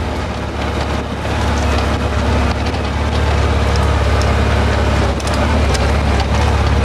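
Off-road mini buggy's engine running under load, getting louder about three seconds in, with sharp cracks and knocks over it.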